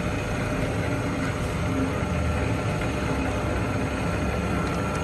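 Takisawa 550 engine lathe running steadily under its single-phase electric motor: an even mechanical hum from the motor and gearing, with a faint steady whine.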